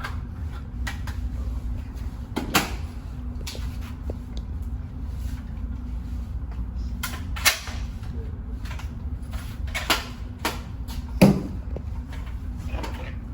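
Gunfire at an indoor shooting range: scattered single shots at irregular intervals, the loudest about eleven seconds in, over a steady low hum.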